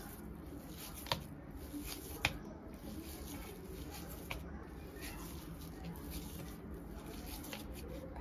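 Soft, squishy handling sounds of hands kneading crumbly fresh paneer into a ball on a steel plate, with a few short sharp clicks, the loudest about a second and two seconds in.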